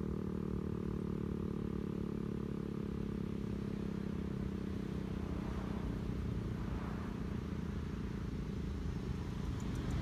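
Federal Signal STH-10 outdoor warning siren's steady low tone fading out over the first few seconds, leaving a low background rumble.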